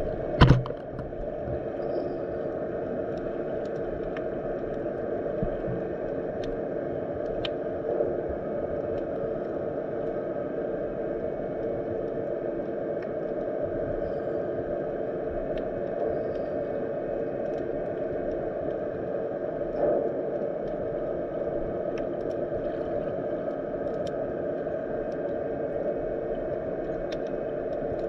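Underwater ambience of a shallow winter sea: a steady low rushing of surge and waves heard underwater, with scattered faint clicks. One loud knock comes about half a second in.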